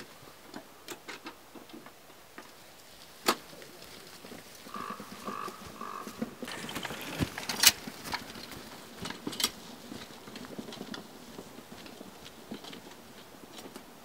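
Footsteps and the knocking and rattling of a loaded metal wheelbarrow being pushed over grass, with scattered sharp clicks, the loudest about seven and a half seconds in. Three short faint tones sound about five seconds in.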